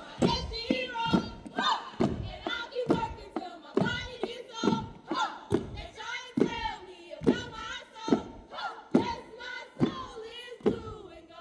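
Stepping routine: rhythmic stomps about twice a second, with a group of voices chanting and shouting together between the beats.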